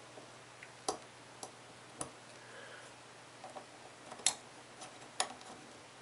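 A handful of light, irregular metallic clicks as a 1/8 inch Allen wrench turns counterclockwise in the set screw of a Delta single-handle faucet's handle to loosen it.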